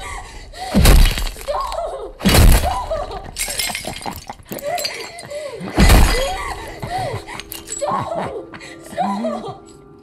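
Three heavy blows of a head being smashed against ceramic bathroom tiles, with tile cracking and shattering, amid screams and anguished wails.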